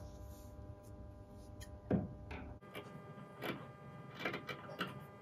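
Faint rustling and light clicks of fabric and sewing tools being handled while a pattern piece is marked and cut out.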